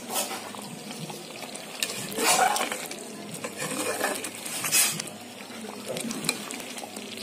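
A perforated steel ladle stirring a runny muskmelon halwa mixture in a metal kadai, scraping against the pan several times, the loudest strokes about two seconds in and near five seconds. Under it, the mixture bubbles steadily as it cooks.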